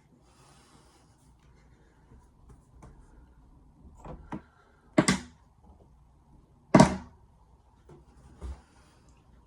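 A few sharp knocks of hard objects being handled and set down on a work surface, the loudest two about five and seven seconds in, with faint rustling between.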